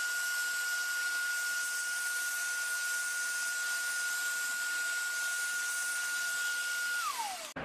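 Vacuum cleaner running steadily, its nozzle sucking dirt and cockroach eggs off an induction cooker coil, with a steady whine above the rush of air. Near the end the whine drops in pitch and the sound cuts off.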